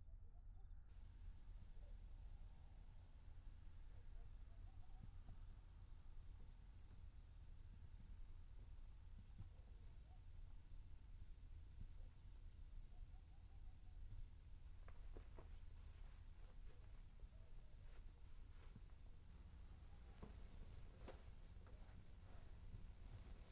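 Insect chirping: a steady, rapid, high-pitched pulse that keeps an even rhythm throughout, over a low steady rumble, with a few faint clicks in the second half.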